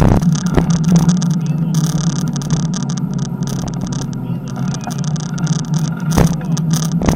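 Bicycle rolling along a cracked asphalt path, heard from a camera mounted on the bike: a steady rumble of tyres and wind, with a few sharp knocks and rattles as it goes over bumps.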